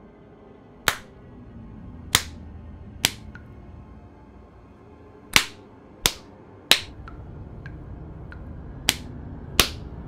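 A hand slapping a face: eight sharp slaps at uneven intervals, with a few fainter ticks between them, over a low music drone.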